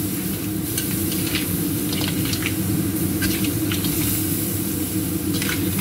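Crab pieces sizzling in a stainless steel wok as a metal spatula stirs and tosses them, with irregular clinks and scrapes of the spatula against the wok. A steady low hum runs underneath.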